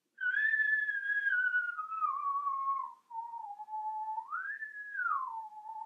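A man whistling one clear tone that slides slowly down in pitch, breaks off briefly about halfway, then swoops up and back down near the end: a demonstration of how shifting the tongue changes pitch.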